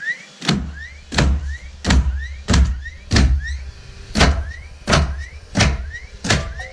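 A DeWalt cordless framing nailer drives nails into wood sheathing about nine times in a steady run, roughly one every two-thirds of a second. Before each shot there is a short rising whine as the tool's motor spins up, then a sharp bang.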